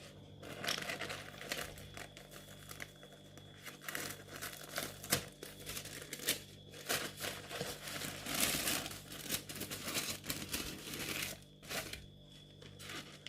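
Crinkly packaging rustling and crackling as craft items are handled and unwrapped, in irregular bursts that are busiest a little past halfway.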